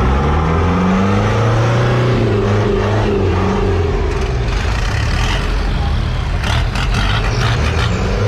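Boat engine running under load, its pitch rising over the first couple of seconds and then holding steady. A few sharp knocks or splashes come about five to seven seconds in.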